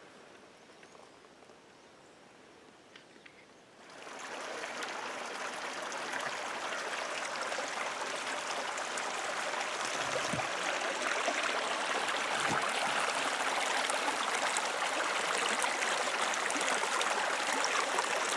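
Small mountain creek trickling and splashing over rocks, fading in about four seconds in and growing steadily louder as it is approached. A couple of dull footsteps thud over it, around the plank footbridge.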